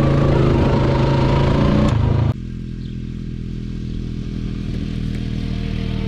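A farm vehicle's engine running steadily; about two seconds in the sound drops abruptly quieter and duller, and the engine runs on at the lower level.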